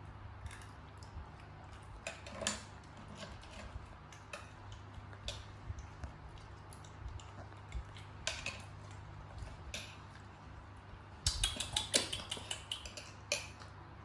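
Dishes and cutlery clinking and knocking now and then, with a quicker run of clatter near the end, over a steady low hum.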